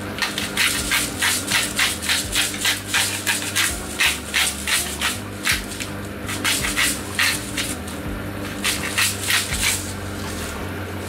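Hand-twisted salt and pepper grinders grinding seasoning, a rhythmic rasp of about three twists a second in three runs, with short pauses about six and eight seconds in.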